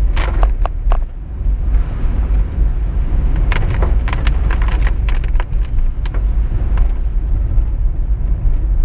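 Car driving on the road, heard from inside: a steady, loud low rumble of road and engine noise, with scattered sharp clicks or knocks.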